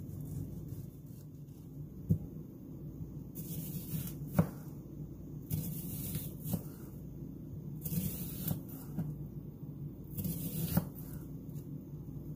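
Chef's knife slicing through a tomato and then an onion on a plastic cutting board: a short swish of the blade through the flesh, then a knock of the blade on the board, about every two seconds.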